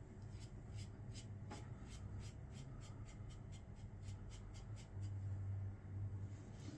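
Safety razor scraping stubble through shave-soap lather: a quick run of short, faint rasps, about three or four a second, over a low steady hum.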